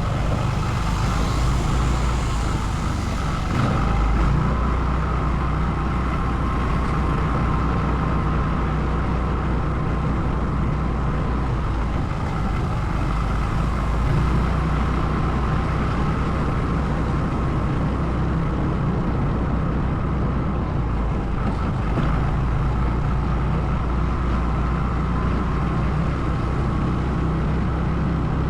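ATV engine running steadily under way, with a continuous low rumble.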